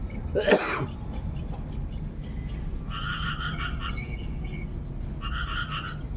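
Frogs croaking in trains of rapid pulses, each about a second long, repeating every couple of seconds. A single loud cough comes about half a second in.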